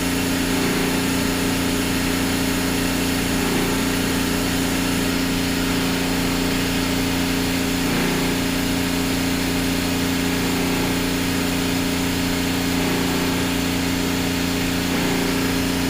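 Steady machinery drone with an even, unchanging hum from a running reverse-osmosis water maker, an old Offshore Marine Laboratories unit, making water under pressure.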